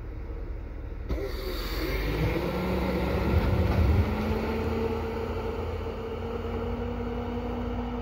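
Pickup truck engine running under load as the truck reverses, dragging its snow plow blade back through the snow; the engine note rises over the first few seconds and then holds steady. A single knock sounds about a second in.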